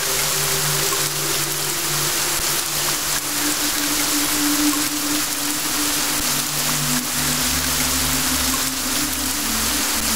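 Steady rain hiss with slow, soft music underneath: held low notes that change pitch every few seconds.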